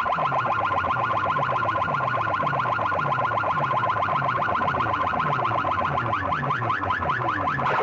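Banks of horn loudspeakers blaring an electronic siren-like warble: rapid pitch sweeps, about eight to ten a second, over a deeper falling tone that repeats about twice a second. The pattern shifts near the end.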